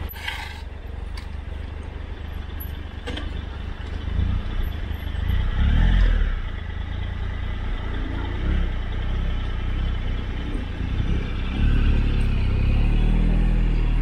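Motorcycle engine running at low speed with a steady low rumble. It gets louder partway through and again near the end as the bike picks up speed.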